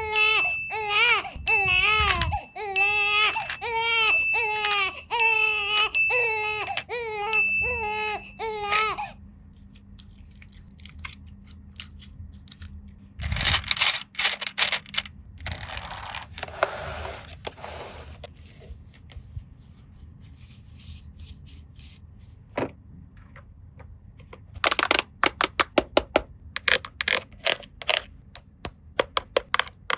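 A baby crying in short, evenly repeated wails for about the first nine seconds. Then come scattered plastic clicks and rustling from toys being handled, with a quick run of sharp clicks near the end.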